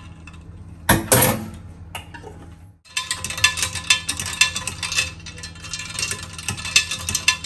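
Ice cubes clinking against the sides of a pitcher as the drink is stirred with a silicone spatula: a quick, uneven run of clinks from about three seconds in. There is one louder knock about a second in.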